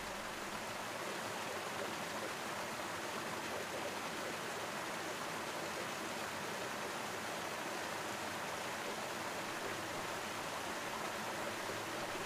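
A steady, even rushing hiss with no rhythm or change.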